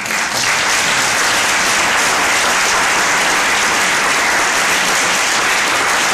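Audience applauding, starting all at once and holding steady and loud.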